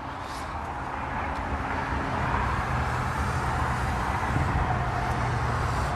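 A motor vehicle running nearby: a steady low engine hum under a rushing noise that builds over the first two seconds, then holds steady.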